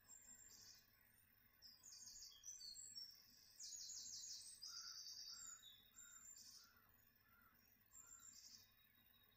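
Faint songbird song: high chirping phrases and quick trills repeat every second or two. A second bird gives a run of about six evenly spaced lower notes in the middle.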